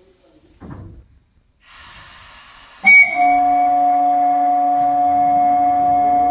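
Class 150 electric locomotive powering up: a hiss, then about three seconds in a click and a sudden loud steady whine of several tones from its auxiliary machinery, with a motor's rising tone spinning up in the last seconds.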